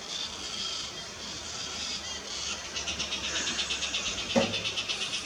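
Cockatoo chick making fast, rhythmic begging calls while a parent feeds it. The calls start a little before halfway through, and there is a single sharp knock near the end.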